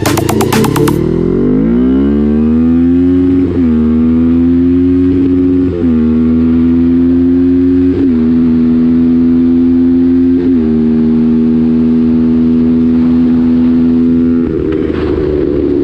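Sport quad's engine accelerating, its pitch climbing over the first couple of seconds, then running at a steady high speed with four brief dips in the note as the rider lifts or changes gear. Near the end the engine note changes and a rattly noise comes in.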